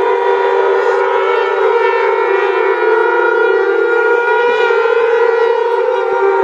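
Many conch shells (shankh) blown together at once, the mass shankhnaad of 151 conches: a loud, steady, unbroken blare of several slightly different pitches layered over one another.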